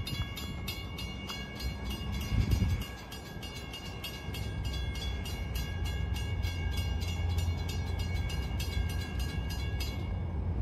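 Railroad grade-crossing warning bell ringing with rapid, evenly spaced strokes, then stopping abruptly about ten seconds in. A low rumble of wind on the microphone runs underneath.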